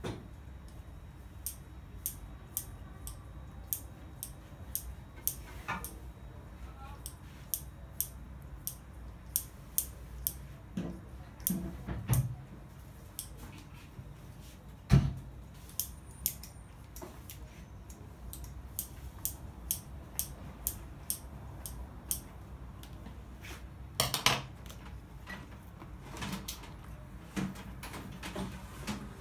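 Kitchen utensils and dishes clinking and knocking during food preparation: light, sharp clicks every second or so, with a few louder knocks about twelve, fifteen and twenty-four seconds in.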